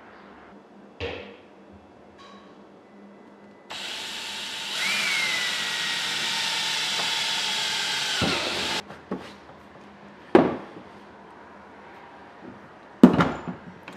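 Porter-Cable 20V cordless drill running a 9/32-inch bit through a plastic kayak deck. It runs for about five seconds with a steady whine, then stops suddenly. A few short knocks come before and after.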